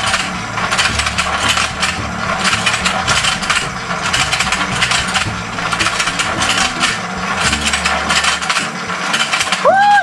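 Battery-powered toy fishing game spinning its pond: the small motor runs under a fast, continuous plastic clicking and rattling of the gears. The motor hum drops away near the end while the clicking goes on.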